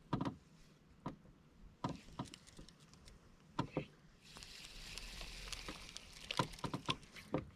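Quiet handling of spinning fishing tackle in a small boat: scattered light clicks and knocks. A faint steady hiss comes in about four seconds in.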